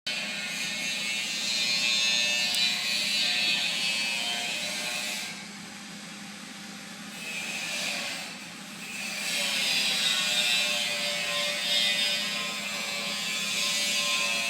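A small power tool running, its high whirring sound easing off twice for a second or so before picking up again.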